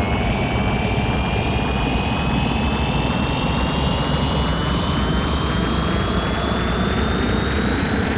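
Electronic, engine-like sound effect: a steady, loud rushing drone like a jet engine, with a thin high whine that rises slowly in pitch.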